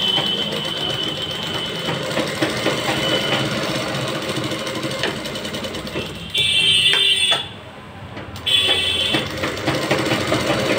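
Sewing machine stitching a seam in quick continuous runs. It stops briefly about seven and a half seconds in, then starts stitching again.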